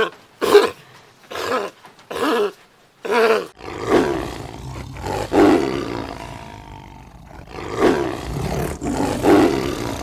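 A sea lion barking in short repeated calls, about one a second, then, from about three and a half seconds in, a white tiger growling in several drawn-out roars.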